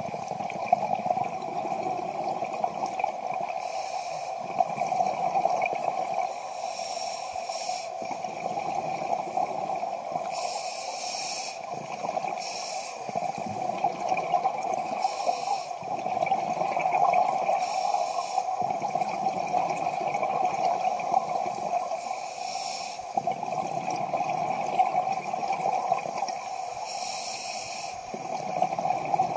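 Scuba regulator breathing underwater: a short hiss on each inhale and a gurgle of exhaled bubbles, repeating every few seconds over a steady hum.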